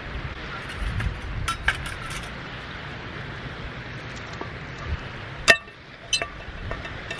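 Light metallic clinks from a stainless camping wood stove, then one sharp clank about five and a half seconds in as a steel frying pan is set onto the stove's pot supports, followed by a couple of smaller clinks. A low rumble runs underneath.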